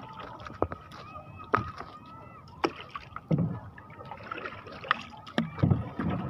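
A longline being hauled in by hand over the side of a small boat: irregular sharp knocks and taps against the hull, with two duller thumps about halfway through and near the end.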